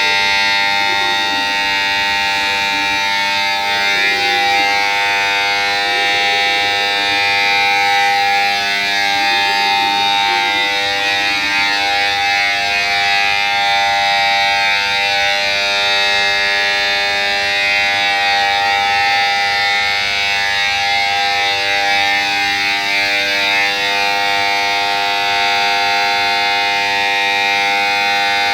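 Railway station emergency alarm (非常ベル) sounding continuously at a steady pitch, very loud. It was set off on the platform, which the uploader takes to be a response to a sick passenger.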